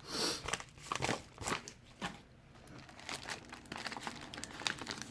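A taped-up mail package being pulled and torn open by hand: irregular crinkling and crackling of packing tape and wrapping. It goes quieter for a moment about halfway, then turns to quick crackles near the end.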